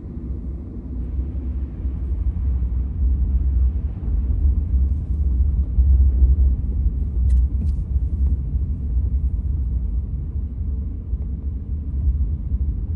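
Steady low rumble inside a truck's cab as it drives on a snow-covered road: engine and tyre noise.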